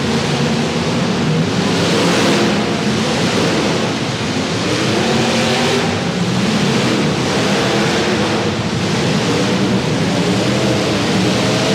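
Derby cars' engines running loud, with several overlapping engine notes rising and falling over a dense rumble.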